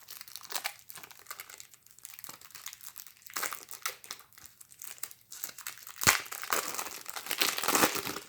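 Plastic shrink wrap around a deck of game cards crinkling as it is torn open and pulled off, in irregular crackles that are loudest about six seconds in and again near the end.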